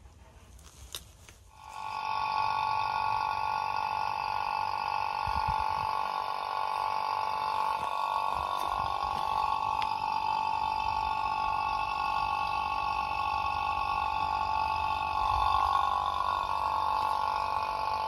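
A machine switches on abruptly about a second and a half in and runs on steadily, making a whine with several steady pitches over a gurgling rumble.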